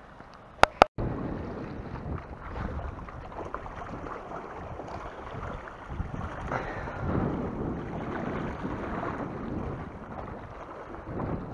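Wind buffeting the microphone with sea water washing against rocks, a steady rough noise that swells and fades. About a second in there are two sharp clicks and a brief dropout.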